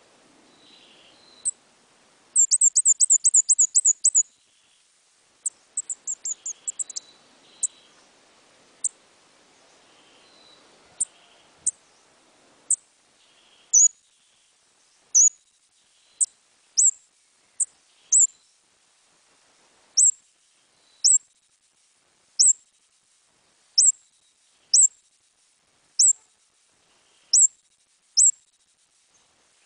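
A small songbird calling in high, sharp chirps: a fast trill of about ten notes a couple of seconds in, then single chirps roughly once a second.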